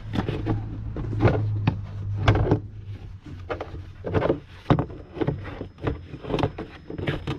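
Hard plastic Injen intake housing knocking, clacking and scraping against parts of the engine bay as it is wiggled into place: a series of irregular sharp knocks.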